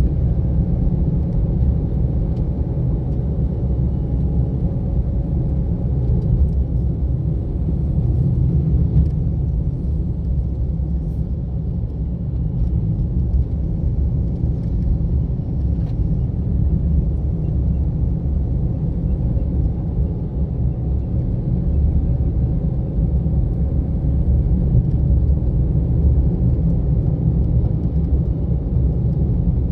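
A car driving along, with a steady low rumble of engine and tyre noise.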